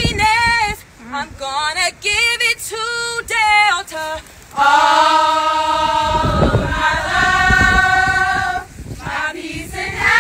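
A group of women singing together in unison, a cappella: short sung phrases at first, then one long note held by the whole group from about four and a half seconds in until near the end.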